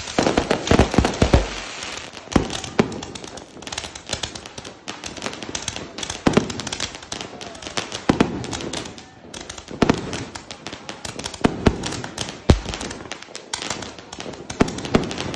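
An 88-shot firework cake firing in a rapid, irregular series of launch thumps and bursting bangs, a few of them heavier than the rest.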